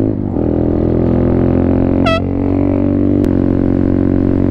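Boat air horn mounted on a small motorcycle, blown in one long steady blast. Two short high chirps sound over it, about two seconds in and near the end.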